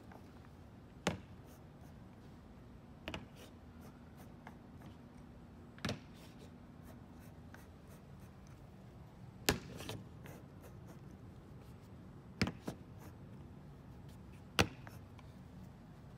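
Sharp clicks and taps, about seven of them at irregular intervals a few seconds apart, from a small hand-held tool set against and lifted off the modules of an LED video wall as they are seated.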